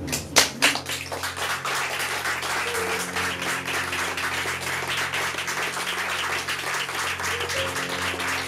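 Small audience applauding, dense steady clapping with a few loud close claps about half a second in. Soft background music with held notes runs underneath.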